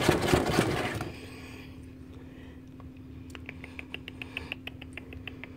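Rustling for about a second, then a low steady hum under a run of short sharp clicks that starts about three seconds in and gets quicker.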